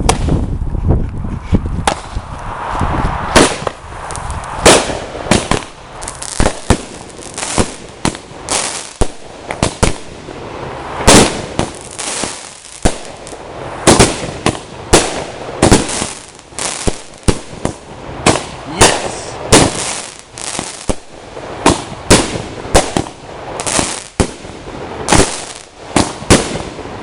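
Consumer fireworks firing a long, irregular series of sharp bangs, about one to two a second, with crackling between the shots.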